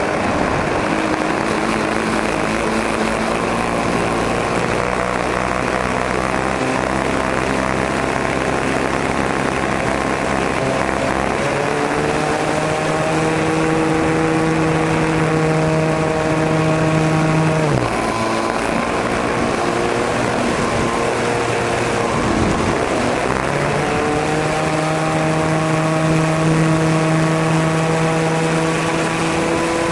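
Model airplane's O.S. 40 glow engine and propeller running in flight, heard from the onboard camera with airflow noise. The engine runs steadily, is throttled back sharply a little past halfway, then opened up again a few seconds later.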